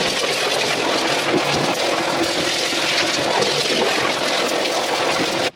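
Kärcher pressure washer jet spraying an engine, rinsing off soaked-in degreaser: a loud, steady hiss of water that cuts off suddenly near the end.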